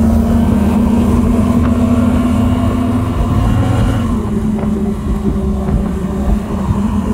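A 60-horsepower outboard motor running at speed under load, pushing the boat along, with water rushing in the wake. The engine note is steady, then shifts slightly and eases a little about four seconds in.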